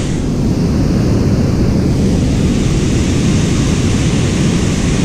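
White water rushing steadily over a river dam's spillway and churning below it: a loud, even rush with no breaks.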